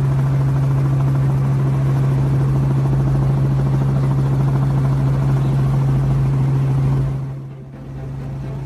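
An engine running steadily, a low hum with a rapid pulsing, dropping in level about seven seconds in.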